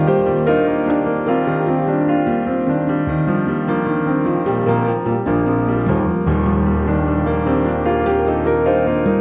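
Background piano music: a steady flow of notes over held bass notes.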